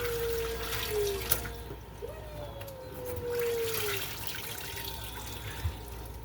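Water dripping and splashing as soaking-wet laundry is lifted out of a washing machine tub that would not drain and wrung out. Twice a drawn-out whine slides slowly downward in pitch over the water, the second lasting about two seconds.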